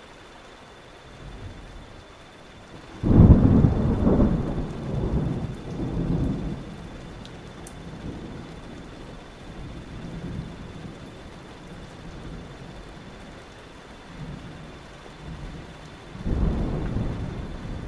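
Thunderstorm ambience: a sudden loud thunderclap about three seconds in that rolls and rumbles for several seconds, then a second rumble of thunder near the end, over steady rain.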